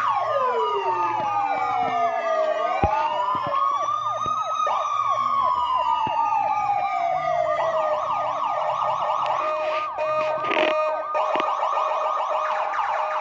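Several electronic police-style sirens sounding at once, layered over one another: slow rising and falling wails in the first half, giving way about eight seconds in to a fast, steady yelping warble.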